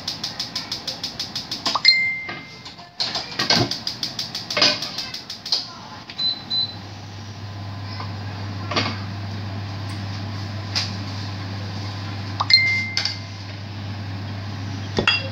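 Gas stove's piezo igniter clicking rapidly, about five clicks a second, in two runs in the first few seconds as the burner is lit. A steady low hum follows once the flame is going, with a few short electronic beeps and light knocks.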